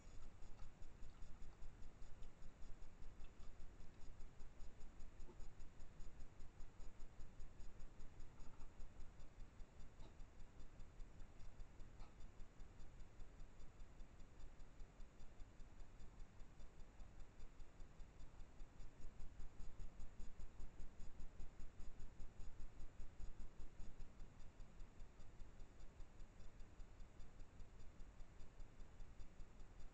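Steady, rapid ticking, about four even ticks a second, over a low hum.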